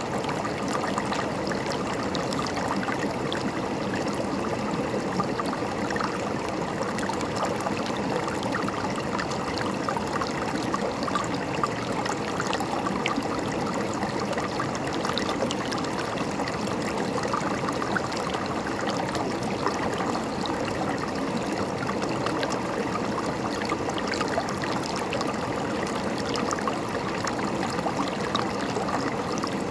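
River water running and gurgling over rocks in a steady, continuous rush with fine splashing detail.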